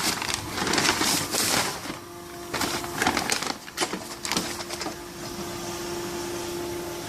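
Irregular rustling and knocking of handling for the first few seconds, then a steady machine hum over a hiss from the running powder mixing and auger filling line.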